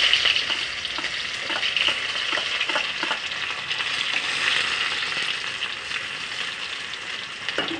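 Finely chopped onion sizzling in hot mustard oil in a kadhai, stirred with a spatula that scrapes across the pan. The sizzle is loudest at the start and slowly eases off.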